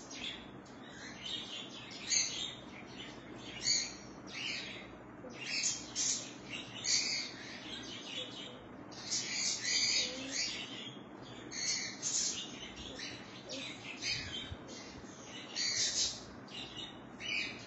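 Birds chirping and tweeting in quick, irregular bursts of high-pitched calls.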